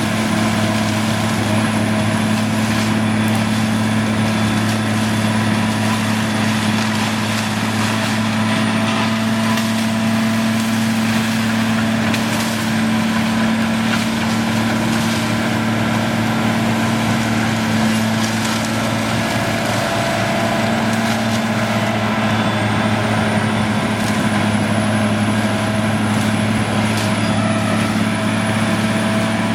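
Heavy diesel machinery, likely a wood chipper being fed by a grapple loader, running at a steady pitch, with scattered cracking and splintering of wood over it.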